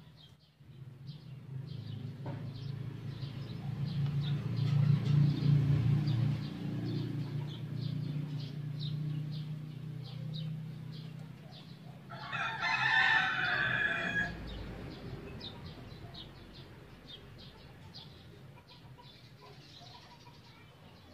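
A rooster crows once, about halfway through, in a single call of about two seconds. Before it, a low drone swells and fades over the first half, and faint light ticking runs throughout.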